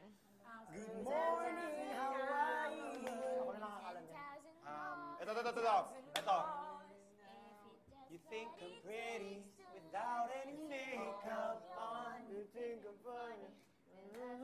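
People singing a cappella, with held notes, and a sharp click about six seconds in.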